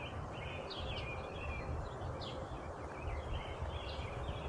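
Birds singing outdoors in quick, repeated chirps that slur downward, over a steady low rumble.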